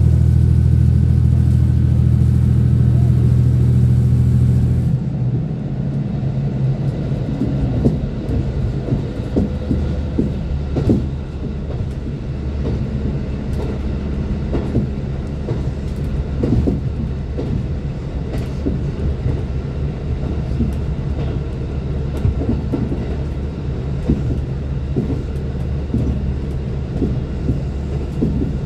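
Inside a diesel express railcar: the engine drones loudly and steadily, then drops away about five seconds in. After that come the running rumble of the wheels on the rails and irregular clicks from the track.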